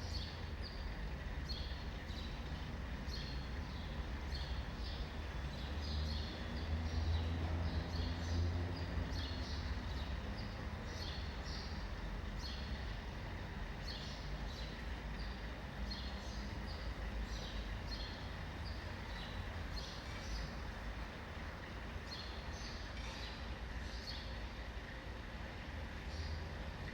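Small birds chirping often over a steady low rumble of city traffic, which swells briefly about seven to nine seconds in.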